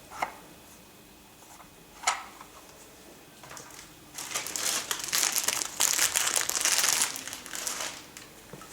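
Packaging crinkling and rustling as it is handled, loudest from about four to eight seconds in, after two sharp clicks.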